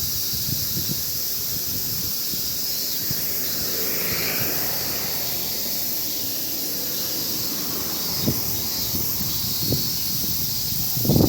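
Strong wind buffeting the microphone in uneven gusts, heaviest near the end, over a steady high hiss.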